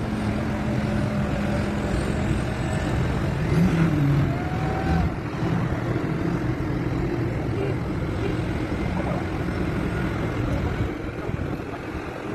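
Tractor and truck engines running together in a steady rumble of traffic, with a few faint wavering tones over it.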